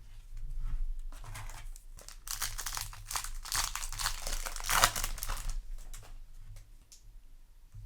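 Foil booster-pack wrapper crinkling and being torn open, a few seconds of dense rustling that is loudest in the middle and fades out near the end.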